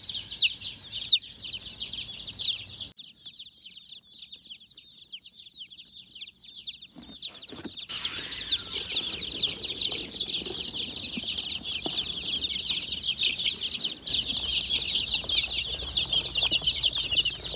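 Many baby chicks peeping: a dense chorus of short, high, downward cheeps. It thins out for a few seconds, with a few knocks about seven seconds in, then comes back fuller and louder from a brooder crowded with chicks.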